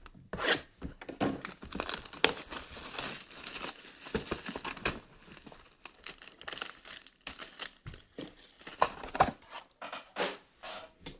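Plastic wrapping on trading card boxes and packs crinkling and tearing as it is handled and torn open, with irregular crackles and a longer stretch of rustling tearing a couple of seconds in.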